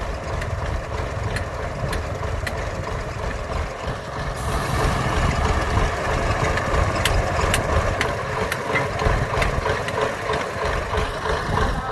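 Belarus 825M tractor's four-cylinder diesel engine idling steadily, a little louder from about a third of the way in, with scattered sharp clicks over it.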